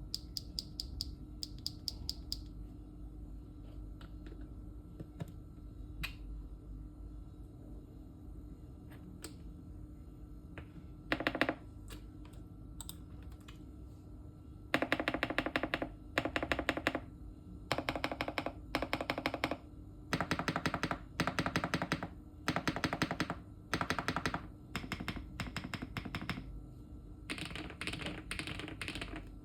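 Typing on a Weikav Max102 mechanical keyboard fitted with MMD Princess Tactile Ultra switches. A few scattered keystrokes come first, then rapid runs of keystrokes, each about a second long, with short pauses between.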